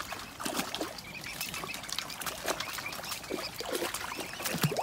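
Mute swan cygnets feeding on floating dry pellets, their bills dabbling, splashing and clicking in shallow water, with short high whistling peeps from the cygnets.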